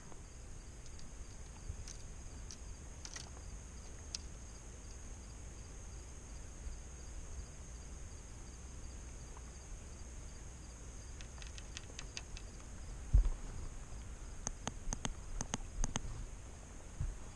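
Steady high-pitched chorus of night insects over a faint low rumble, with a few light clicks in the second half and one sharp knock about two-thirds of the way through.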